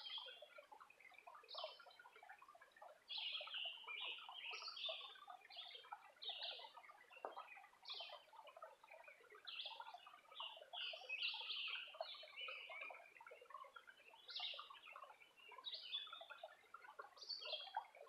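Several birds singing and calling together: short, high chirping phrases about once or twice a second over a busy background of fainter, lower chirps. Faint overall.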